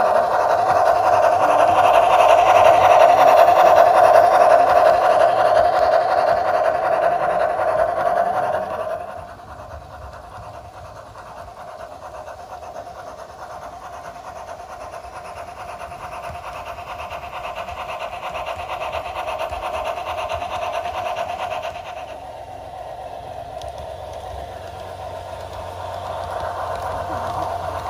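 G-scale model locomotives running on garden track: a steady whirr of electric motor and gearing with wheels running on the rails. The Bachmann Climax is loud as it passes close, then the sound drops off sharply about nine seconds in and goes on more quietly, stepping down again near 22 seconds as a second model train runs.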